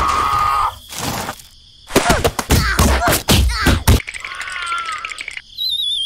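Cartoon sound effects: a steady buzz that cuts off just under a second in, then a quick string of knocks and springy boings, and near the end a wobbling whistle sliding down in pitch, a dizzy effect.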